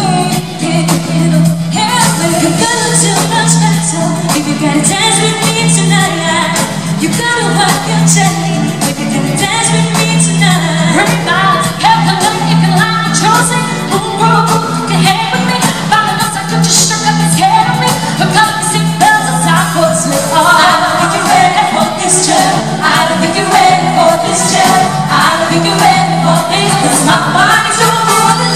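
Live pop music: female singers singing into microphones over a band, with a steady beat, amplified through a concert hall's sound system.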